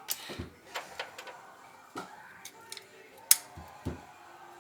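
Irregular sharp clicks and small knocks of hand work on the water heater installation, the loudest a single sharp click a little over three seconds in.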